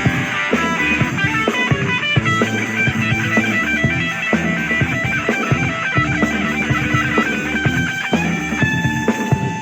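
Rock music with electric guitar melody lines over a steady drum beat.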